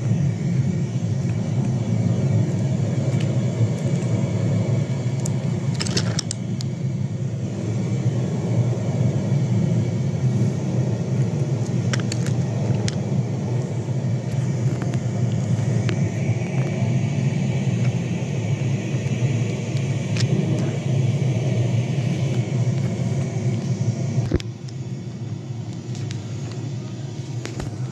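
Wooden toy subway train's wheels rolling along wooden track: a steady rumble with a few sharp clicks, easing off about three seconds before the end.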